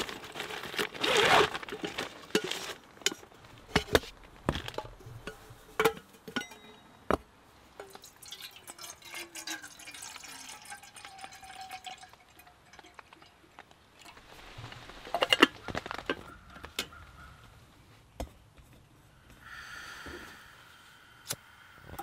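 Water poured from a metal bottle into a kettle on a small gas camping stove, among scattered clicks and knocks of handling, after a plastic bag crinkles at the start. A sharp knock comes about two thirds of the way in. Near the end a steady gas hiss with a faint whistle starts as the stove's knob is turned.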